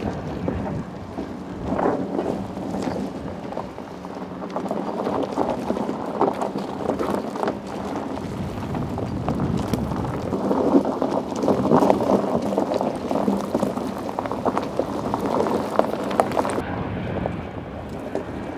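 BMW X3 G45 prototype driving slowly over loose gravel and rock: tyres crunching and stones crackling under a low, steady engine hum, louder in the second half.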